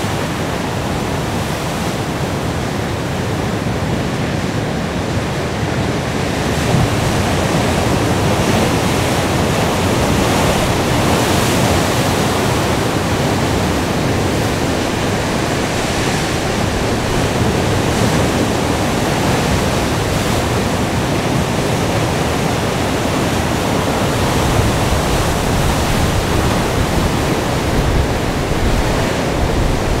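Rough sea surf and wind: a steady rush of breaking-wave noise that swells a little now and then.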